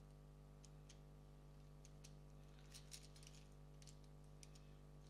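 Faint clicks and taps of plastic Lego Technic parts being handled and pressed together, a quick cluster of them about three seconds in, over a steady background hum.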